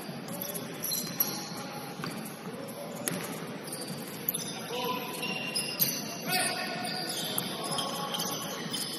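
Basketball game sounds: a ball bouncing with sharp knocks now and then, and sneakers squeaking in short high chirps, mostly in the second half, over a murmur of players' voices.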